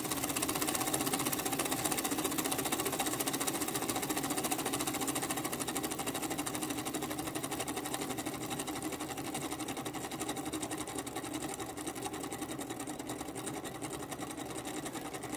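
Homemade single-acting oscillating (wobbler) engine running on compressed air, with a rapid, even beat of strokes and air puffs. It grows gradually quieter as the air is turned down to slow it.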